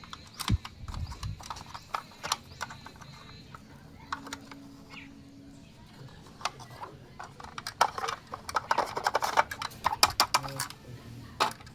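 Small hard plastic toy-kitchen pieces being handled and set down: irregular clicks and taps, coming thick and fast for a couple of seconds near the end.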